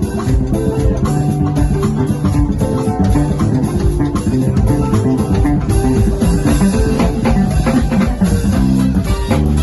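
Live band jamming: electric bass playing a groove with a drum kit and keyboard.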